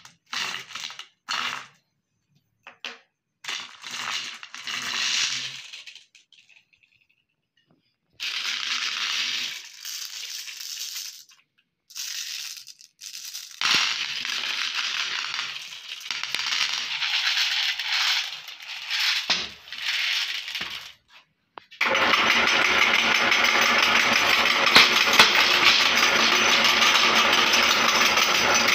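Glass marbles clattering and clicking against each other and a plate in irregular bursts as they spill from a cut net bag and are spread by hand. About three quarters of the way through, a steady, dense noise starts and stays loud to the end.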